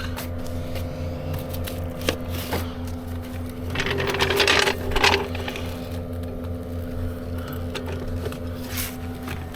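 A motor running steadily with a regular low pulse. About four seconds in, a louder rushing noise lasts for about a second and a half.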